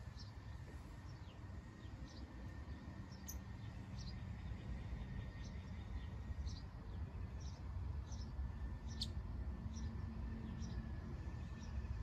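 Quiet outdoor background: a steady low rumble with scattered short, falling bird chirps.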